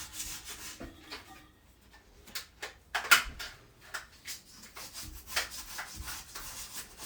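Sandpaper rubbed by hand on the ceramic around a toilet bowl's tank-bolt holes, smoothing the seats for new bolts and gaskets. It comes as irregular short scraping strokes, the loudest about three seconds in.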